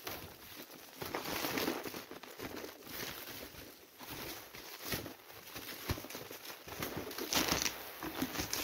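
Clear plastic packaging crinkling and rustling in irregular spells as hands handle and unwrap it from a cap.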